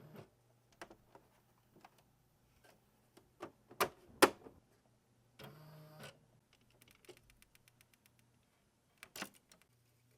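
A typewriter being handled and set up: scattered clacks and knocks of its metal parts, the loudest two in quick succession about four seconds in, then a short rasping slide a little past halfway, followed by a quick run of light ticks and one more knock near the end.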